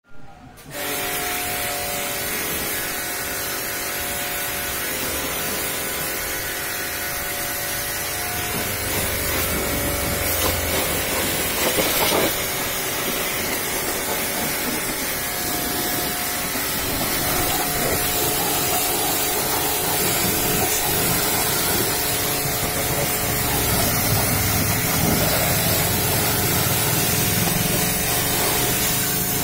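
Pressure washer running steadily, a constant hiss of the water jet over the humming motor and pump, spraying the SUV's wheel arch and wheel; it starts within the first second.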